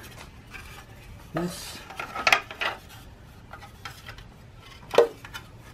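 Chrome side cover of a Kawasaki Vulcan 900 clinking and scraping against the bike's frame as it is fitted by hand: a cluster of light metal clicks about two seconds in, and one sharp clink near the end.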